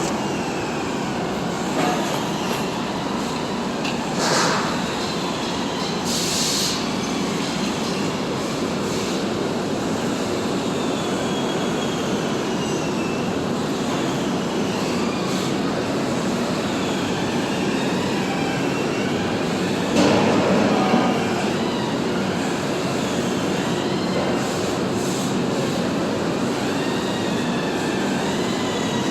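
TIG welding arc running as a steady hiss, with faint wavering whistling tones through it. There are a few brief flares and a louder swell about two-thirds of the way through.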